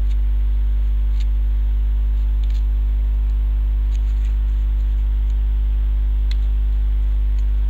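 Steady electrical mains hum, the loudest sound, with a few faint ticks and scrapes of a utility-knife blade cutting cardboard.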